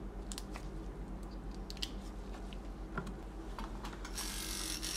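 Small clicks and taps of handling a coil tattoo machine and pressing the buttons of its digital power supply, over a steady low hum, with a short hiss near the end.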